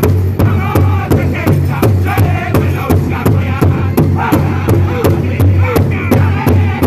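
Powwow drum group singing a contest song: men's voices in unison over a fast, steady beat that they strike together on a large shared powwow drum.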